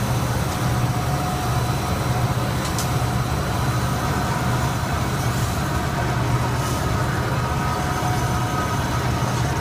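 Textile stenter (tenter frame) running: a steady industrial machine drone with a strong low hum. A brief sharp click sounds about three seconds in.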